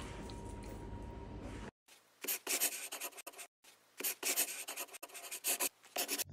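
A pen scratching on paper in irregular strokes, as a sound effect for a handwritten logo being drawn on. It starts about two seconds in, after a steady faint room tone.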